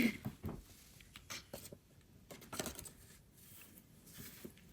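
Faint, scattered rustling and light handling noises of a parcel's contents being picked up and shown, a few soft clicks and crinkles with short quiet gaps between them.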